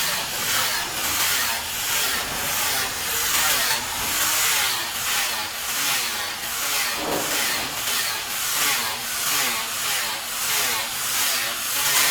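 Hand tool working wood in steady back-and-forth strokes, about two a second, a rasping scrape on each stroke.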